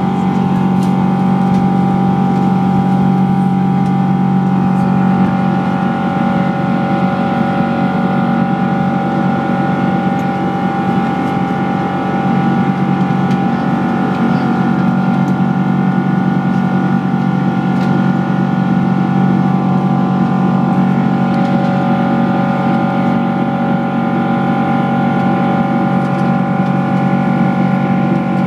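Boeing 777-200 cabin noise from its Rolls-Royce Trent 892 turbofans as the airliner climbs out after takeoff. A steady, loud drone carries several steady whining tones and does not change.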